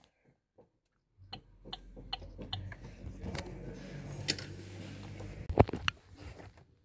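Hazard-warning flasher of a 2022 Opel Combo ticking in the cabin, a run of sharp regular clicks over a steady low hum, with a couple of louder clicks near the end.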